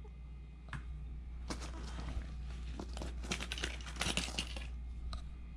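Hand tools being rummaged through and lifted out of a tool bag: scattered clicks, clinks and rustling, busiest in the middle, over a steady low hum.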